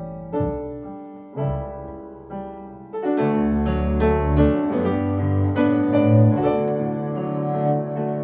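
Piano playing a slow instrumental passage of held chords over low bass notes, quieter at first and swelling louder and fuller from about three seconds in.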